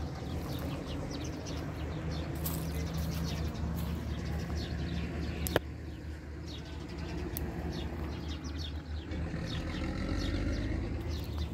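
Many small birds chirping in quick, repeated short calls among the trees, over a steady low rumble. A single sharp click comes about halfway through.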